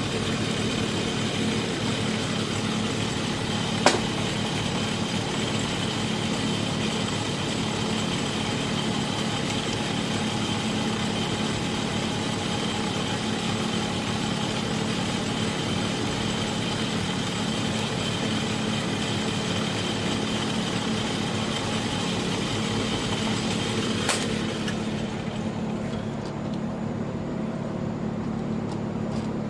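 A machine or engine running steadily with an even hum, and two sharp clicks: one about four seconds in, one near the end. About twenty-five seconds in, the higher hiss in the sound falls away.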